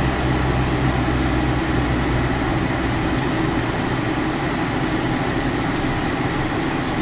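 A motorhome on the move, heard from inside the cab: a steady mix of engine hum and road noise. The low engine hum fades about a second and a half in, leaving an even road-and-cab rumble.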